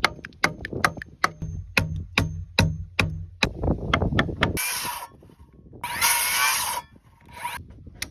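A tool striking timber again and again, about two blows a second, followed by two short hissing bursts about a second apart.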